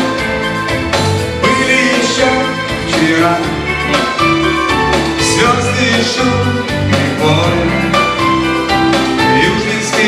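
A live pop band playing a song: electric guitar and keyboards over a steady beat, with singing.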